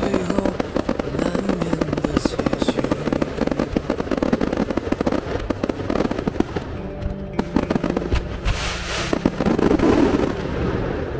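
A long, dense run of rapid crackling pops over background music, thinning out and fading near the end.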